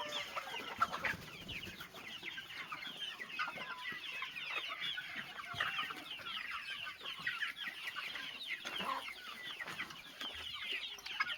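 A flock of young chickens, about two and a half months old, cheeping and clucking together: many short, high calls overlapping without a break.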